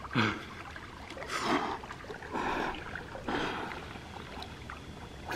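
A swimmer splashing through the water in four short bursts about a second apart, with a brief voice sound at the first.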